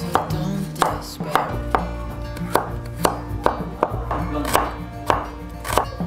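Kitchen knife chopping shallots on a plastic cutting board, the blade striking the board sharply about twice a second.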